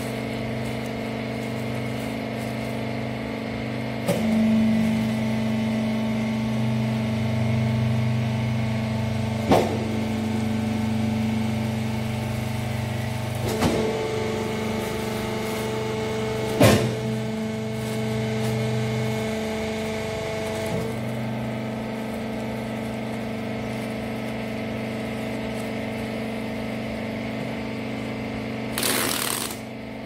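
Hydraulic rags baler's pump running with a steady hum; about four seconds in its pitch steps up as it works under load, with three sharp knocks during the press cycle, then settles back to the lower hum about twenty seconds in. A short burst of noise comes near the end.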